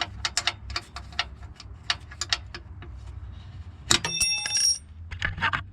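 Hand tools working on metal: a run of irregular light clicks and knocks, then a sharp metallic clink about four seconds in that rings briefly. A steady low hum sits underneath.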